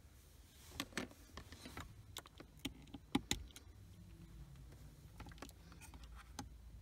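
Irregular plastic clicks and taps as fingers wiggle and press a Bluetooth FM transmitter seated in a car's 12V socket, loudest about a second in and just after three seconds. It is being worked into place because the socket's contact is poor and the unit would not power up.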